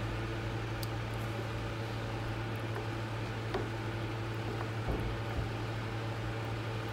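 Steady low hum with a faint hiss from the kitchen, with a few soft clicks of a metal spoon stirring a pan of coconut noodle soup.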